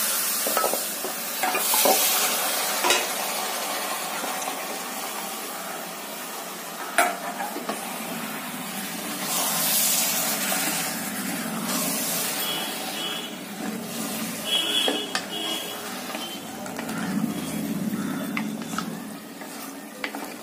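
Marinated chicken pieces sizzling in the hot masala in an aluminium pressure cooker as a wooden spatula stirs and scrapes them around, with a few sharp knocks against the pot.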